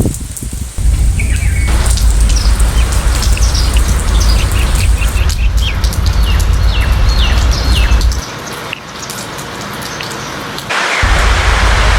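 Steady rain with backyard birds chirping, including a run of short, sliding notes repeated about once a second in the middle. A deep rumble runs under the rain, drops away for a few seconds near the end, then comes back.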